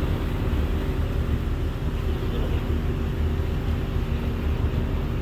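Passenger ferry's diesel engine droning, heard from on board: a steady deep rumble with a constant hum above it.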